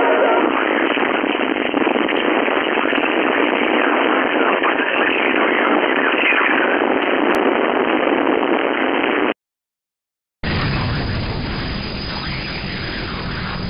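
Static hiss from an 11-metre FM radio receiver, with faint warbling signals buried in it. About two-thirds of the way in it cuts out suddenly for about a second, then returns as a fuller hiss with more low rumble until it cuts off again at the end.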